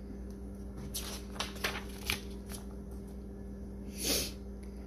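Paper page of a picture book being turned by hand: a few quick crisp rustles and flicks, then a brief soft swish near the end.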